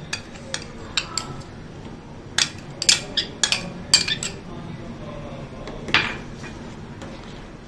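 A steel spoon clinking and scraping against a small glass bowl and a steel saucepan as the bowl is emptied into the pot. Scattered sharp clinks, most of them in a quick run between about two and a half and four and a half seconds in, and one more about six seconds in.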